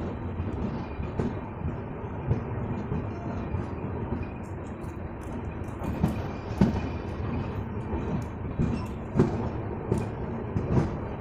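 Veer Bhumi Express passenger train running on the line: a steady rumble and rattle of the coach, with irregular clacks and knocks from the wheels and couplings.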